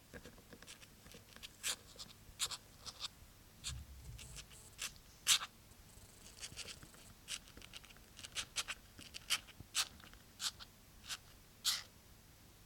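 Light irregular scratching and scraping, a short stroke every half second or so, from kittens moving about on a surface with their claws.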